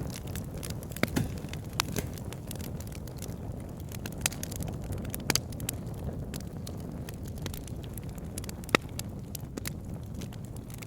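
Wood fire crackling in a fireplace: a steady low rush of flame with frequent irregular snaps and pops, a few louder pops standing out, the sharpest near the end.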